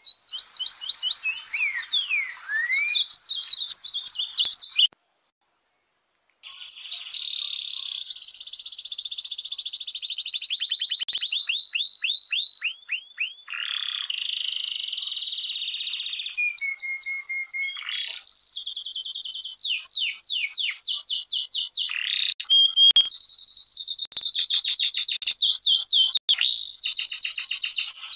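A finch singing: long rolling trills and fast runs of quick rising-and-falling whistled notes, one phrase after another, broken by a short silence about five seconds in.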